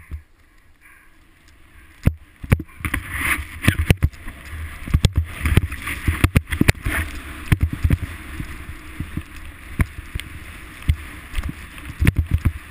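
A rider sliding downhill through powder snow: a rushing hiss and scrape of snow, broken by frequent irregular knocks and bumps as the camera is jolted.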